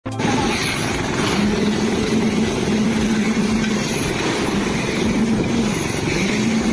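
Loud, steady machinery noise with a low hum, starting and cutting off abruptly.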